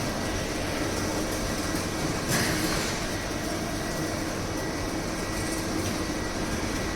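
CNC vertical milling machine running: a steady mechanical noise with a faint high, even whine, and a brief louder burst of noise a little over two seconds in.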